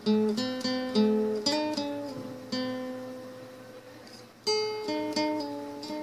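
Acoustic guitar played one note at a time, picking out a slow melody in raga Sivaranjani. A long note is left ringing in the middle, then quicker notes follow near the end.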